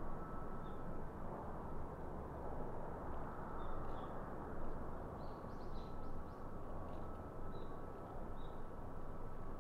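Distant Solaseed Air Boeing 737-800 jet airliner on final approach and landing: a steady engine rumble with a faint high whine. Small birds chirp briefly several times over it.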